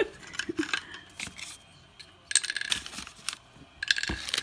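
Plastic dolls, small doll chairs and paper tags being rummaged through in a plastic storage bin: scattered light clatters, clicks and rustles, busiest about two seconds in and again near the end, with a dull knock near the end.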